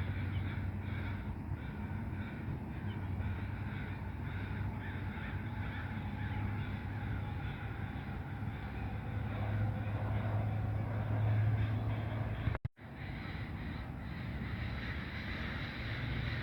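Crows cawing at intervals over a steady low rumble of lakeside ambience. The sound cuts out for a moment about twelve seconds in.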